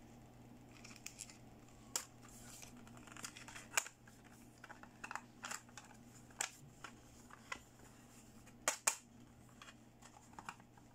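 Hard plastic toy makeup compacts clicking and tapping as they are handled: scattered light clicks, with two sharper ones close together about nine seconds in.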